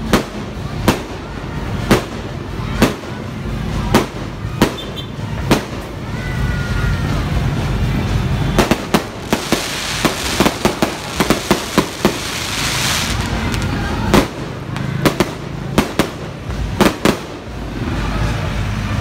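Aerial fireworks going off: sharp bangs about once a second, then a dense run of quick bangs and crackling near the middle, then more single bangs.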